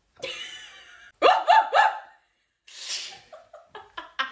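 A person making a silly made-up vocal noise: a drawn-out voiced sound, then three quick loud yelps, each falling in pitch, then a breathy hiss and a string of short clipped sounds near the end.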